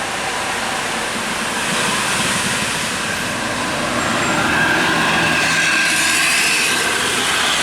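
Large tour bus driving past on the road: a steady rush of engine and tyre noise that slowly grows louder, with a thin steady whine coming in over the second half.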